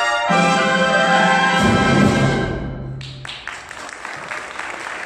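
Symphonic band with alto saxophone soloist holding a final chord, with a low drum stroke under it about a second and a half in, then cutting off. Applause breaks out about three seconds in.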